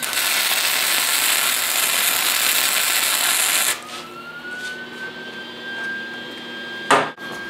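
Wire-feed welder striking an arc on steel to lay a tack weld: a steady crackling hiss for about three and a half seconds that cuts off suddenly. A quieter steady high whine follows, and a single sharp knock comes near the end.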